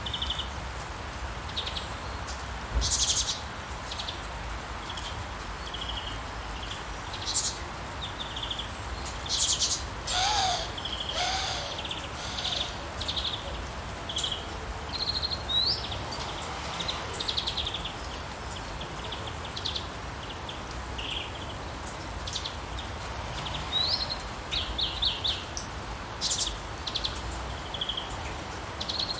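Steady rain with many small birds chirping and singing over it, short high calls and trills coming every second or so.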